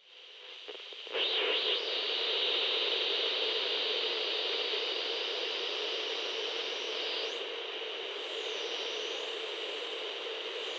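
Television static hiss, building up over the first second and then steady, with a high whine that sweeps up and down in the second half.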